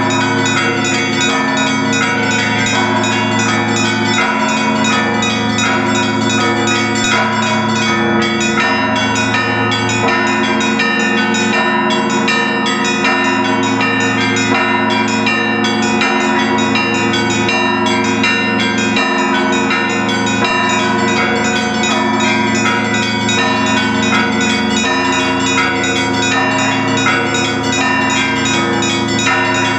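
Orthodox church bells of the St. Sophia Cathedral bell tower ringing together at a steady level. Many bells are struck in rapid, dense succession over the sustained hum of the deeper bells.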